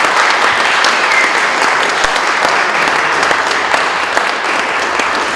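Audience applauding steadily: many hands clapping together in a continuous clatter.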